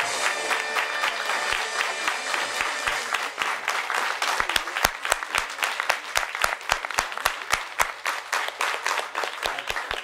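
Audience applauding. About four seconds in, the claps settle into even rhythmic clapping in unison, about three claps a second.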